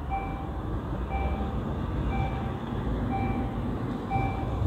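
Railroad level-crossing warning signal beeping about once a second, a short high electronic tone each time, sounding to warn that a train is approaching while the barriers come down. A low rumble runs underneath.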